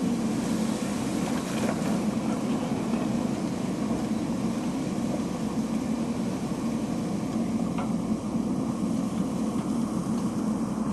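JCB 3DX backhoe loader's diesel engine running steadily, with a couple of faint knocks.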